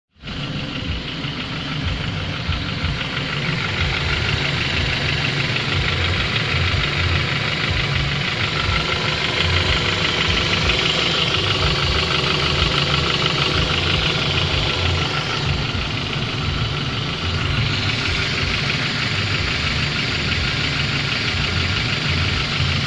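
Honda F23A 2.3-litre inline-four engine running steadily with a rapid knock, in an engine that has just been overhauled.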